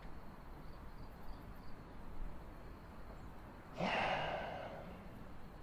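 A man sighs once about four seconds in, a breathy exhale that fades over about a second, over a faint low background hum.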